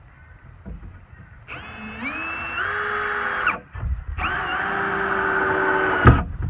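Cordless drill run in two bursts of about two seconds each, its motor whine rising in pitch as it speeds up and then holding steady before cutting off abruptly, with a sharp knock at the end of the second burst.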